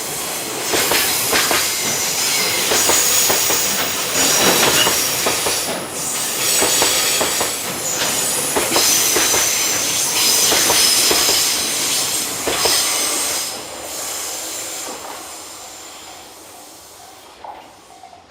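Freight train wagons rolling past, wheels clicking over rail joints with high-pitched flange squeal. The sound fades away over the last few seconds as the train's tail passes.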